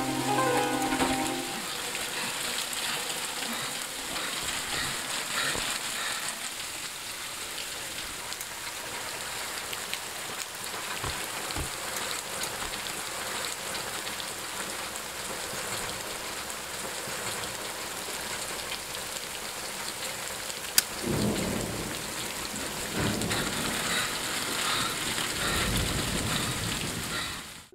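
Steady heavy rain falling. About three-quarters of the way in, a sharp crack is followed by a low rolling rumble of thunder lasting several seconds.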